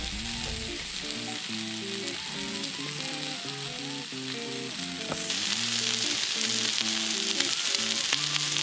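Chicken skewers (yakitori) sizzling on a griddle plate, a steady hiss that grows louder from about five seconds in. Background music plays throughout.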